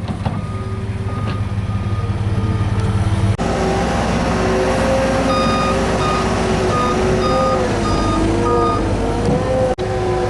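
Heavy equipment engine running under load, its pitch wavering, while a backup alarm beeps in steady short pulses, in two runs broken by abrupt cuts.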